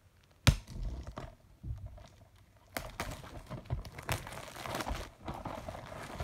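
A plastic DVD case being unwrapped and opened by hand: a sharp click about half a second in, a few lighter clicks, then crinkling and rustling of plastic through the second half.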